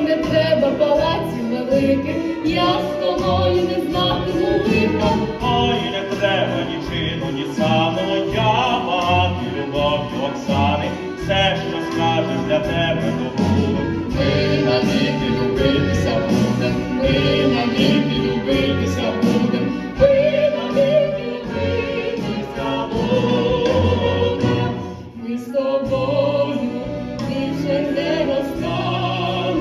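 Music with singing from a stage song performance, with a brief lull near the end.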